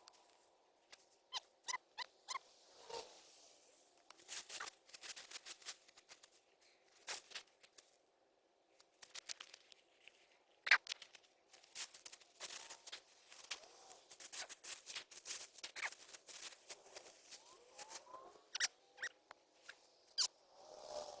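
Dry potato plants and soil rustling and crackling as they are pulled and dug through by hand, in irregular clusters of sharp clicks.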